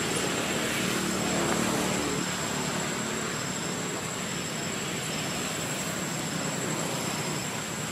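Steady outdoor background hiss with a faint low engine drone that fades away over the first two or three seconds, and a constant high thin whine.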